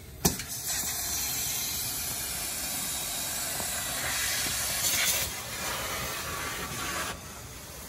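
Compressed air hissing steadily out of the 1989 Crown Super Coach's air system, starting with a click, swelling briefly about five seconds in and cutting off about seven seconds in.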